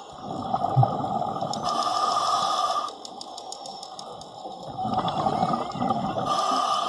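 A diver breathing through a full-face diving mask: two breaths about four seconds apart, each a rush of air and bubbling with a sharper hiss near its end.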